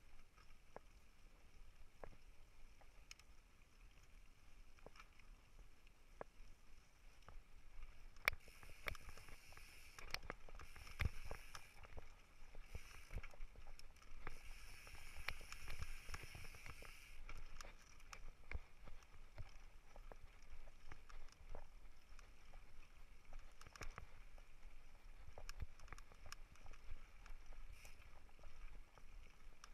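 Mountain bike rattling and knocking over a rough dirt trail, with irregular clicks and clunks from the bike throughout. From about 8 to 17 seconds in, a hissing rush joins it.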